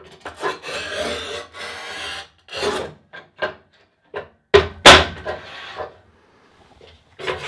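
Montolit Masterpiuma manual tile cutter in use on a tile laid at 45 degrees: a rasping scrape of tile and cutting head sliding on the bed, a few knocks, and a loud sharp crack about five seconds in, followed by more brief scraping.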